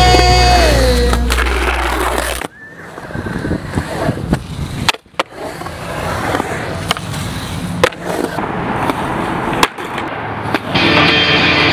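A rock song cuts off about two and a half seconds in, leaving skateboard urethane wheels rolling on a concrete skatepark, with a few sharp clacks of the board's deck and trucks hitting the concrete. Music comes back in near the end.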